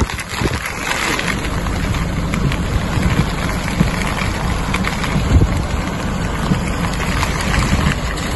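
Steady rushing noise of heavy rain and a swollen river in flood, with wind buffeting the microphone in a fluctuating low rumble.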